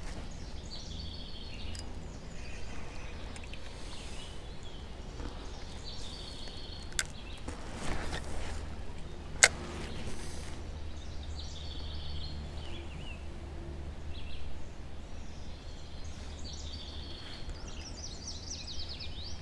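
Birds chirping and singing in repeated short phrases over a steady low rumble, with a small click about seven seconds in and a sharper, louder click about nine and a half seconds in.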